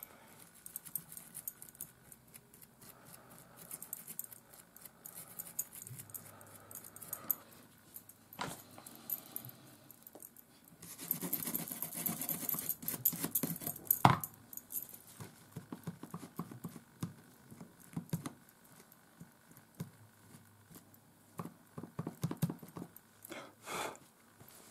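Bristle brushes scrubbing alcohol over the solder side of a circuit board to clean off flux: a paintbrush and a toothbrush rasping on the board, with a louder stretch of harder scrubbing in the middle and a couple of sharp taps.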